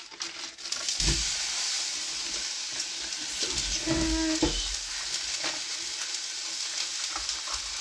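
Ground beef going into a hot pan: a low thump about a second in, then a steady frying sizzle, with a few light clicks.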